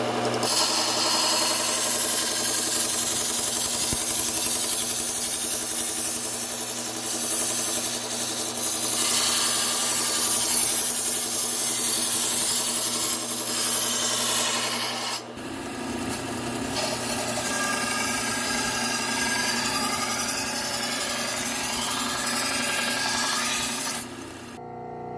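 Belt sharpener grinding the edge of a large steel pizza knife: a steady abrasive hiss over the hum of the running belt. The grinding dips briefly about fifteen seconds in, resumes, and falls away near the end.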